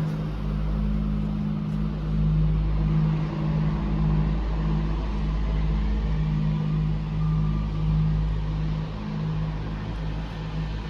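Steady low engine hum with a deep rumble underneath, from motor traffic; the hum wavers in strength but does not stop.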